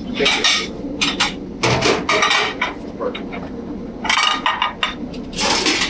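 Restaurant kitchen line clatter: plates, steel pans and utensils clinking and knocking. Several short, louder bursts of clatter come through it.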